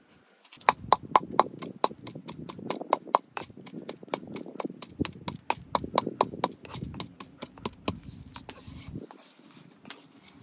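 Stone pestle pounding in a stone mortar: quick, sharp knocks several times a second, starting about half a second in and thinning out near the end.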